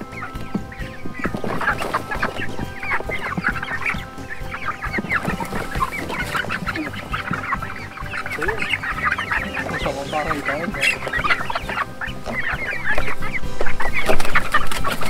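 A flock of young chickens giving many short, overlapping high calls and clucks as they are tipped out of a tub onto grass. Near the end the sound grows louder as the birds flap their wings and scramble out.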